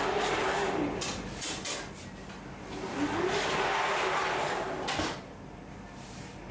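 Metal oven loader of a bakery deck oven sliding in and out at the oven deck. It makes two long sliding runs with clicks between them and a sharp knock about five seconds in.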